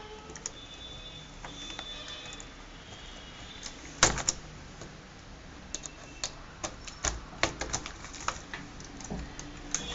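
Plastic clicks and snaps as a small screwdriver pries at the keyboard's retaining tabs and the keyboard is worked loose from a Dell Inspiron 15R laptop. A loud cluster of clicks comes about four seconds in, then a run of irregular clicks and taps through the second half.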